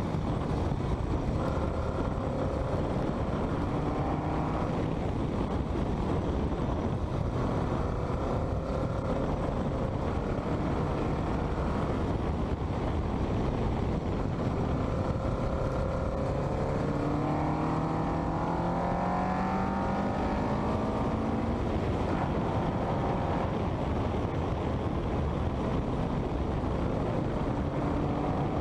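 Westfield kit car's engine under hard driving, its note faint beneath heavy wind rush on a bonnet-mounted camera. The engine pitch climbs in several stretches as the car pulls through the gears, with one long climb about two-thirds of the way through.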